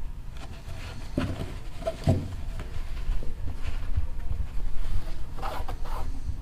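Quiet handling noises: fabric for a pet bow tie being folded and pressed down, with a few soft knocks on the table and some brief rustling near the end.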